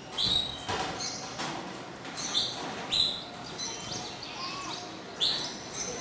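Canaries in a cage giving short chirping calls, about four in a few seconds.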